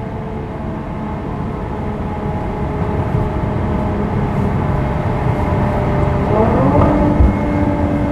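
Maserati Quattroporte's V6 engine under way in sport mode, heard from inside the cabin, its sound slowly building. About six seconds in the revs climb quickly and then hold at a higher pitch.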